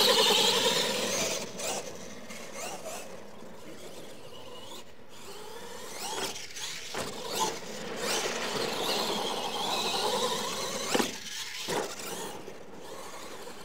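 Radio-controlled monster truck's motor and gears whining, rising and falling in pitch as the truck accelerates and slows. Loudest at the start as it passes close by, with a couple of sharp knocks near the end.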